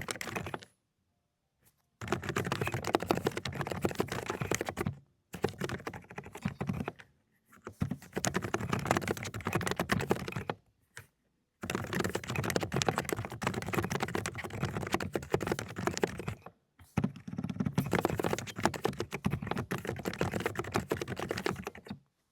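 Fast typing on a Dokgeomi (Aula) mechanical keyboard with low-noise cotton-candy switches: rapid, dense keystrokes in runs of a few seconds, broken by brief pauses.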